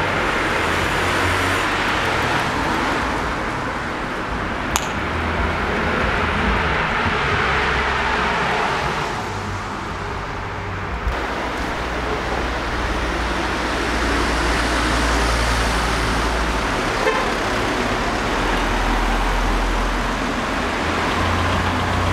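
Street traffic: cars passing on a town road, a steady rush of engine and tyre noise with a low rumble underneath. A single sharp click about five seconds in.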